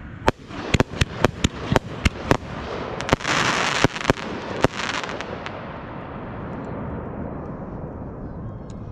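Aerial fireworks going off: a quick series of sharp bangs over the first five seconds or so, with a loud hiss about three seconds in, then a fading rumble.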